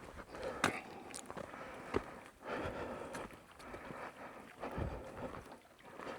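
Footsteps on a rocky trail, several sharp clicks of boots on stone, over the steady rush of a small creek.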